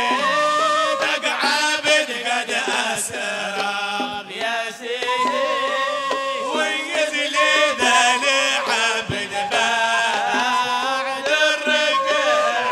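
A male voice singing a Hadrami devotional qasida (inshad) in a melismatic, wavering line, with hand drums beating along.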